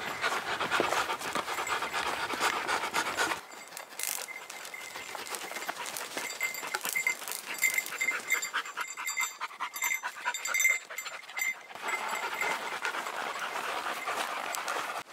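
Dog panting while walking a dirt trail, with crunching footsteps and hoof steps.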